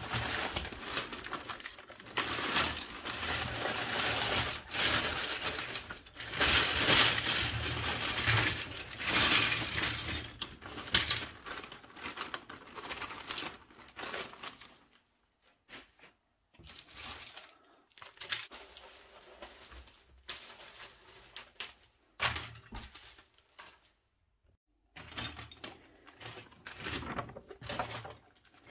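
Plastic zip-lock bag crinkling and loose LEGO bricks clattering and clicking together as the bag is handled and its parts are spilled out, loudest in the first half. This is followed by quieter rustling of paper instruction-booklet pages being turned, with a few sharp clicks.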